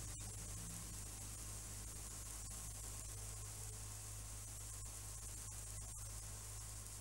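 Steady hiss with a low mains hum underneath, the noise floor of an old film soundtrack, with no other sound.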